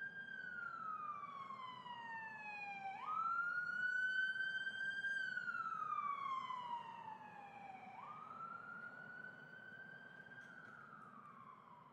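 Siren-like wail: a single pitched tone with overtones that slides slowly down, jumps sharply back up twice, climbs briefly and slides down again. It fades toward the end.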